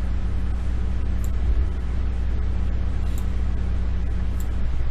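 Steady low background hum, with a few faint, short clicks spaced a second or more apart.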